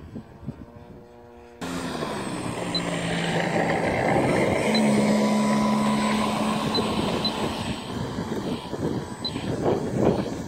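Electric motor and propeller of a GeeBee R3 RC model plane: a faint hum at first, then, after a sudden cut, a much louder close-up whir whose pitch slides down over a couple of seconds and then holds steady, fading near the end.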